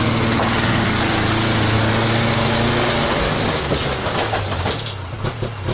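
Yamaha snowmobile engine running steadily as it is driven up a wooden ramp into a truck's cargo box. The engine note drops away after about three seconds, followed by a few sharp knocks near the end.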